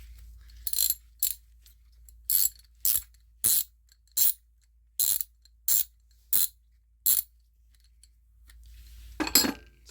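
Hand ratchet and socket giving about ten sharp metallic clicks, one roughly every two-thirds of a second, then a louder knock near the end.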